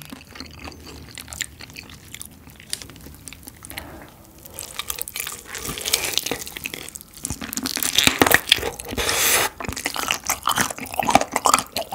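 Close-up eating sounds of a spicy sauced fried chicken drumstick: quiet handling at first, then biting into it with crisp crunches and chewing, loudest in the second half.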